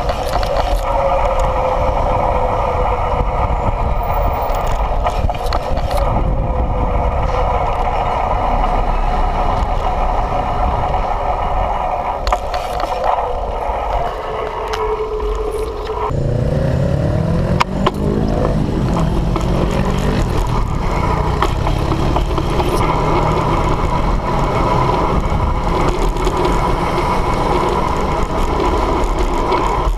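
Wind and road noise on a bike-mounted action camera riding through city traffic, with motor vehicle engines running nearby. About halfway through, an engine rises in pitch as a vehicle speeds up close by.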